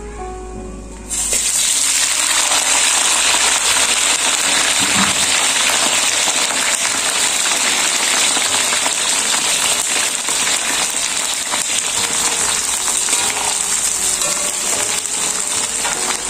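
Chopped cabbage sizzling in hot cooking oil in an aluminium wok. The loud, steady sizzle starts abruptly about a second in, as the cabbage hits the oil.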